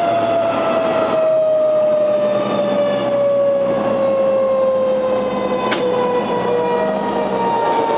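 A fire engine's mechanical siren coasting down, its pitch falling in one long, slow glide. A single sharp click comes about six seconds in.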